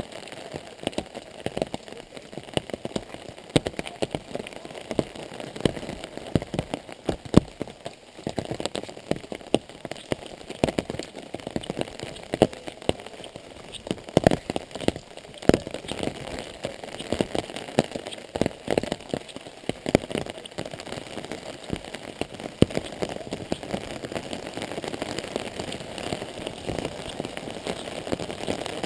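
Rain falling, with irregular heavier drops striking close by as sharp, uneven taps over a steady patter.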